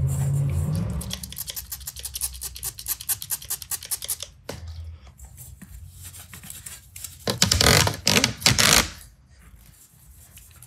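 Cloth rubbing back and forth on steel, wiping marker lines off with rubbing alcohol, in quick, dense strokes. The rubbing gets louder about seven seconds in and dies down near the end.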